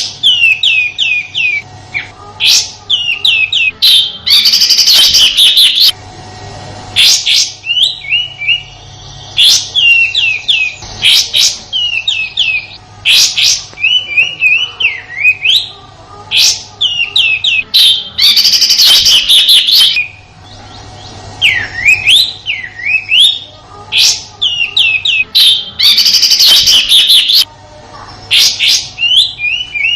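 Kapas tembak (orange-spotted bulbul) calling loudly in quick runs of short, sliding whistled notes. Three rough, rasping bursts break in: the harsh 'tembakan' calls, once early, once a little past the middle and once near the end. A faint steady hum runs underneath.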